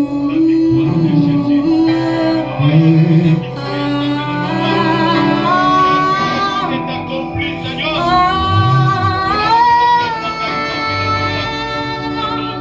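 Music with singing: a sung melody held over a steady instrumental accompaniment, the voice coming in about four seconds in.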